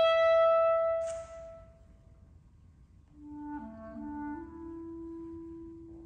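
Unaccompanied clarinet: a loud held high note ends about a second in, with a brief hiss just after; then, after a pause, soft low notes begin around three seconds in and settle onto a long held note.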